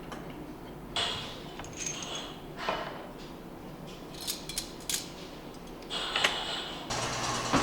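Scattered clinks and knocks of dishes and cutlery being handled. Near the end a steady low-humming machine noise starts up.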